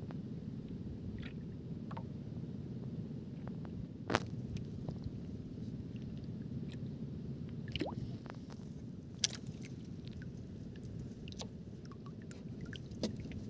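Steady low rumble of the sea around a small outrigger fishing boat, with a few sharp clicks and taps as the fishing line is handled, the loudest about four and nine seconds in.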